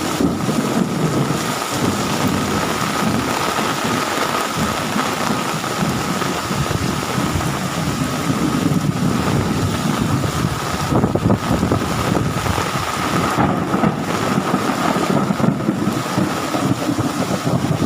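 Heavy rain pouring steadily in a thunderstorm, with thunder rumbling low underneath and swelling and fading several times.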